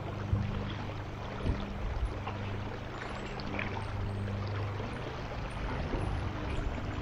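Stream water running steadily, with a few faint clicks and knocks over it.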